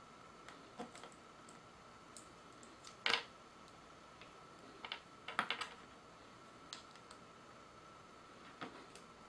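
Small hard-plastic clicks and taps from an SD Next MS-09 Dom capsule-toy figure being handled and posed, its parts and joints moved by fingers. The clicks are scattered and irregular, with the loudest about three seconds in and a quick cluster around five and a half seconds.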